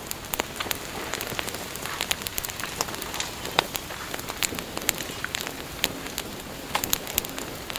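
Fire sound effect of a house burning: a steady hiss dotted with many sharp crackles and pops.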